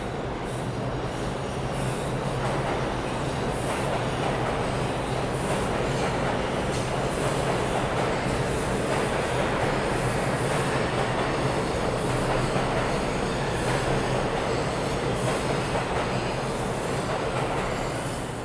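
A New York City subway train on the IRT Lexington Avenue Line runs along the far track through the station, its wheels rumbling on the rails. The sound swells over the first few seconds, stays steady and loud, then eases off near the end as the last car goes by.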